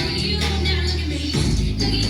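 Music with sustained bass notes that change about a second and a half in, over a steady beat.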